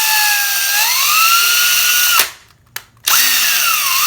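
Power drill boring a hole through a small piece of cork, running in two bursts with a pause of about a second between them. Its whine sags and recovers in pitch as the bit bites into the cork.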